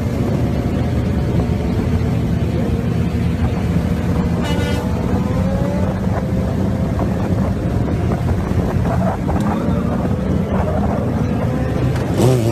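Steady engine and road noise of highway traffic with a sport motorcycle running alongside, its engine note rising slowly through the middle. A brief high tone sounds about four and a half seconds in.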